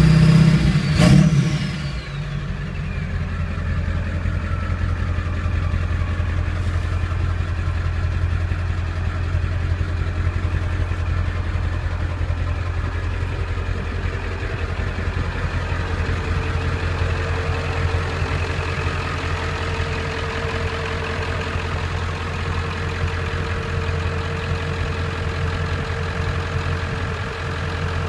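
1997 Ford F350's 7.3 L Powerstroke V8 turbo diesel dropping off a rev about a second in, its turbo whistle gliding down in pitch as the engine falls back to a steady idle. A faint steady whine comes in over the idle about halfway through.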